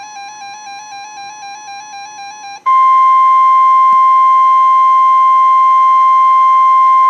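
A quieter electronic tone trilling rapidly between two pitches, then about two and a half seconds in a loud, steady single-pitch tone starts abruptly and holds: the NOAA Weather Radio 1050 Hz warning alarm tone that comes before a warning broadcast.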